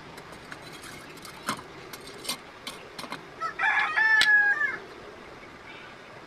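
A rooster crowing once, a single call of about a second and a half about halfway through, the loudest sound here. Before it come a few sharp clicks of metal tongs and tweezers being handled.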